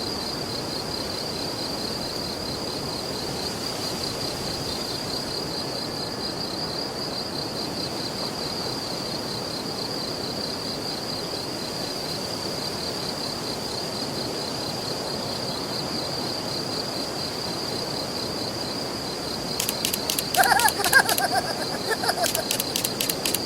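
Crickets trilling steadily in a high, pulsing chorus. About twenty seconds in, a louder, rapidly repeating sound joins them.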